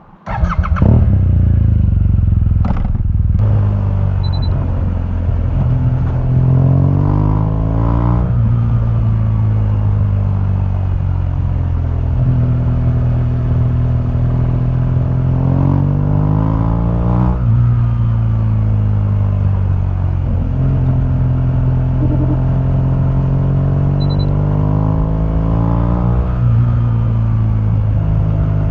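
2015 BMW R1200GS boxer-twin engine through its stock exhaust. It starts up suddenly about half a second in, then runs steadily. Three times its revs climb for a couple of seconds and drop back sharply.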